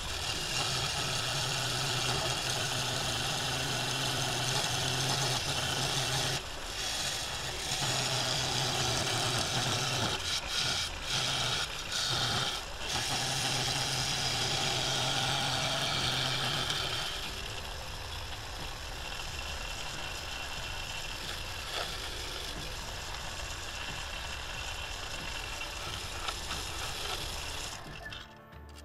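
Wood lathe running with a turning gouge cutting the outside of a claret ash bowl blank: a steady hiss of cutting over a low hum, with a few brief breaks. About two-thirds of the way through it drops to a quieter, duller sound.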